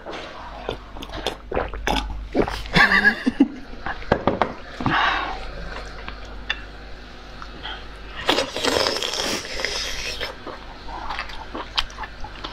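Close-miked mouth sounds of drinking and eating: sipping and swallowing water, then chewing, with many small wet clicks. Two louder breathy bursts come about three seconds in and about nine seconds in.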